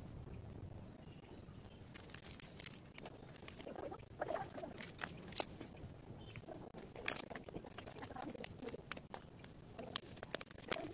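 Paper seed packet crinkling as it is handled and snipped open with scissors: soft, irregular crackles and clicks.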